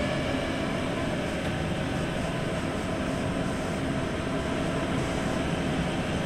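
Running noise inside a Tokyo Metro 9000 series subway car with Toshiba IGBT inverter drive, travelling at a fair speed through the tunnel. A steady rumble of wheels on rail with a faint, even hum.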